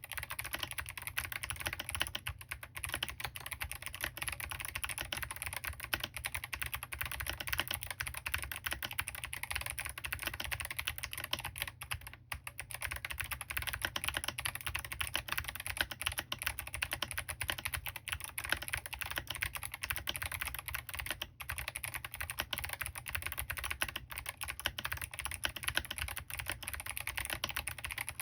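Fast, continuous typing on a Smurve80 mechanical keyboard fitted with clicky Kailh Box Jade switches, tall SA Handarbeit keycaps and an aluminium plate with no foam, giving a sharp, crisp click on every keystroke. The typing pauses briefly about 12 seconds in and again about 21 seconds in.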